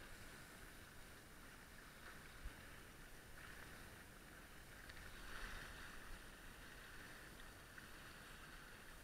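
Faint rush of water along a small sailing catamaran's hull, swelling about five seconds in, with a few light ticks.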